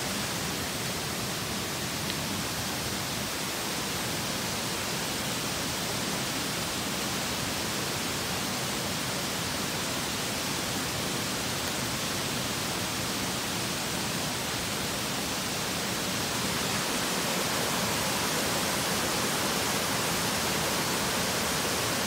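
Steady rush of mountain cascades running full with rainwater, a little louder near the end as the falls come closer.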